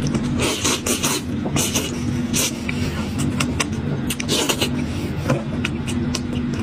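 Close-miked eating sounds of meat being pulled off a cooked sheep's head by hand and eaten: repeated short wet smacks and sucking noises. A steady low hum runs underneath.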